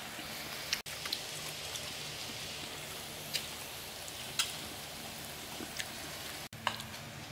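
Beef and vegetables sizzling on a hot grill pan over a portable gas stove: a steady, even hiss with a few light clicks of tongs and chopsticks against the pan. The hiss drops out briefly twice.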